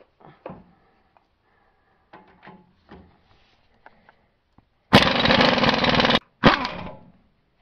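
Impact wrench hammering on a rear-axle leaf-spring U-bolt nut to break it loose: one burst of about a second, a short pause, then a second shorter burst. Light knocks of the socket being fitted come before it.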